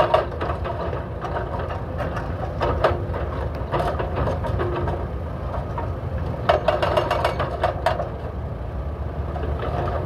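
Hydraulic breakers on SANY SY335C excavators hammering asphalt blocks in stretches of rapid blows, strongest about four seconds in and again from about six and a half to eight seconds. Under them the excavators' diesel engines run steadily with a low drone.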